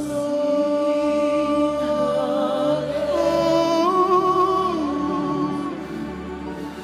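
Slow gospel worship song: singing voices hold long notes with vibrato, moving slowly from pitch to pitch over a low sustained accompaniment.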